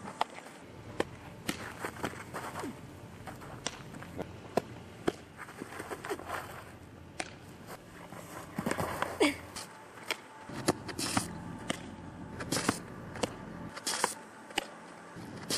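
Sharp, scattered pops of a softball smacking into leather fielding gloves and a catcher's mitt, mixed with cleats scuffing on infield dirt.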